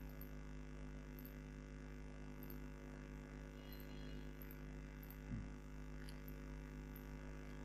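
Steady electrical mains hum from the recording setup, a faint drone with evenly spaced tones. About five seconds in there is one brief, falling low sound.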